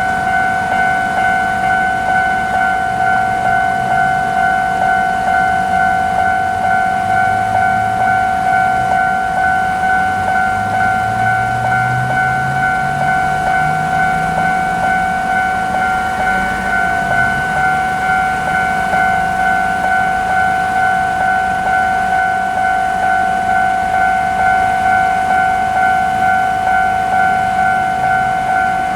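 Japanese level-crossing warning bell ringing its repeated "kan-kan" in an even, steady rhythm. Underneath, a train runs through the crossing, its low motor hum rising in pitch about ten to sixteen seconds in.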